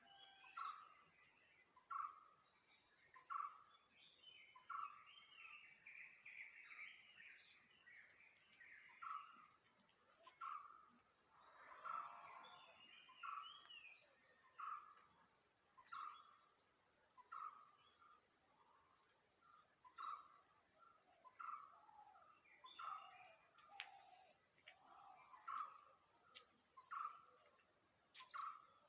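Faint bird calls: one bird repeats a short note about every second and a half, with other scattered chirps, over a steady high-pitched whine.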